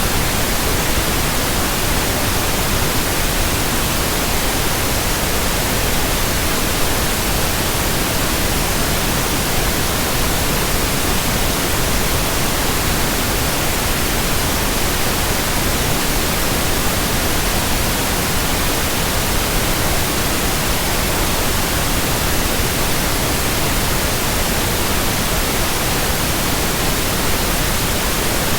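Steady, unchanging hiss of white noise, even from low to high pitch, with no rise, fall or break: a continuous relaxation noise track.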